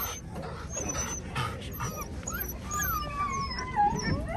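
Belgian Malinois puppies whimpering and whining in high, wavering cries that slide up and down, with a few short barks near the start.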